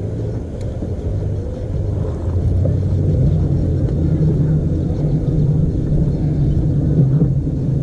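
A boat motor running with a steady low hum that grows louder about two and a half seconds in.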